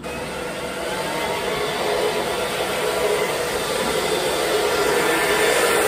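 Handheld hair dryer blowing steadily on the customer's hair. It is switched on at the start and grows slowly louder.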